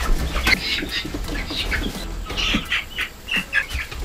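Young hens squawking and calling in many short, high calls while being lifted by hand and set down in a pen, with a few sharp knocks and flaps among them.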